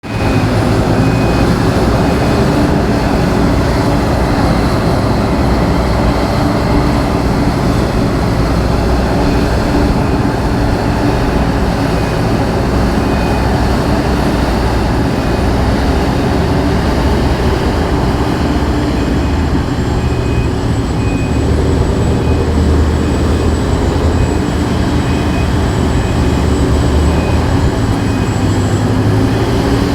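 Heavy construction machinery running steadily with a low, even rumble. A faint high beep repeats about once a second through much of it.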